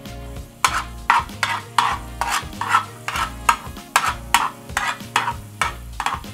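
Spoon scraping back and forth across a frying pan, stirring chopped garlic and basil sautéing in olive oil, about two to three strokes a second starting about half a second in, over a light sizzle.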